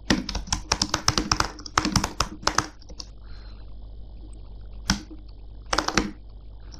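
Computer keyboard typing: a quick run of key clicks for the first two and a half seconds or so, then a pause, a single key press about five seconds in and a few more just before six seconds.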